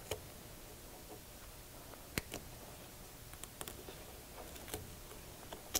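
Faint, irregular sharp clicks of hand nips snipping and working the factory cloth tape off a vehicle wiring harness, a handful of them, the sharpest about two seconds in and near the end.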